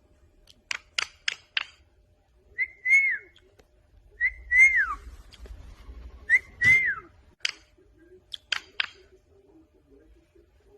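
Three whistled phrases, each a short note followed by a longer one that rises a little and then slides down, with sharp clicks before and after them.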